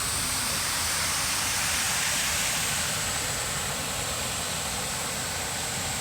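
Steady rushing of water from a wide, low waterfall spilling about 4 m over a broad rock slab.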